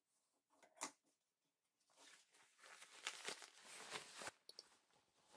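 A single scissor snip trimming a seam allowance, then a couple of seconds of crackly rustling from insulated, foil-faced bag fabric being handled and bunched up.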